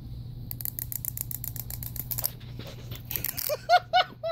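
Clockwork key of a wind-up toy chick being wound: a quick, even run of ratchet clicks, about eight a second, for nearly two seconds. Then, near the end, a pet bird gives three short, loud calls, each arching in pitch.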